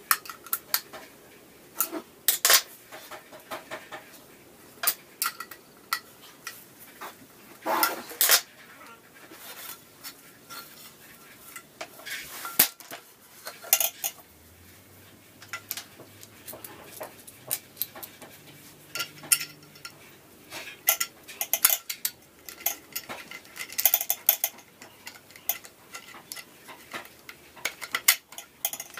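Metal stunt-scooter parts clinking and clacking as they are handled and fitted together: irregular sharp clicks and knocks throughout.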